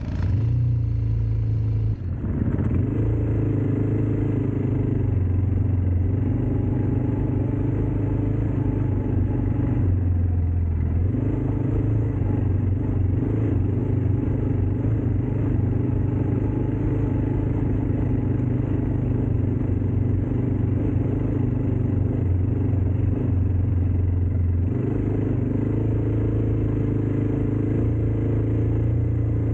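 ATV engine running steadily, its note shifting slightly about ten seconds in and again near the end.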